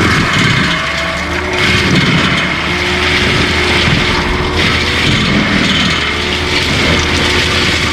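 Skid steer with a forestry mulcher head running: a steady diesel engine note with rising and falling surges of grinding noise.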